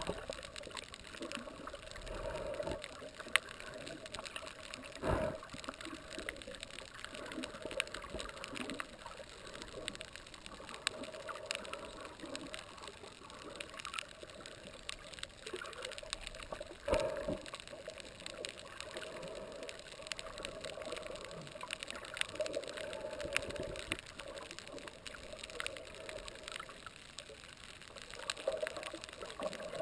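Underwater reef sound heard through a camera housing: a steady crackle of many small clicks, typical of snapping shrimp, over a rush of moving water. Two dull knocks stand out, about five and seventeen seconds in.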